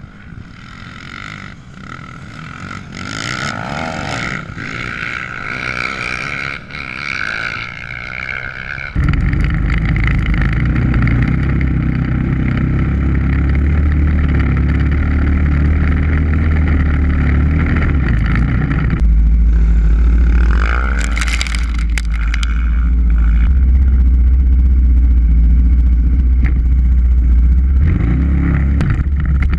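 Dirt bike and ATV engines running and revving, their pitch rising and falling. About nine seconds in the sound switches suddenly to a loud, steady low rumble. A sharp rev rises around twenty-one seconds.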